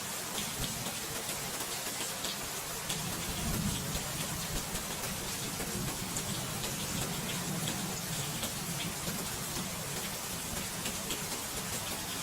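Steady rain falling: a constant hiss with scattered drop ticks and a low rumble underneath.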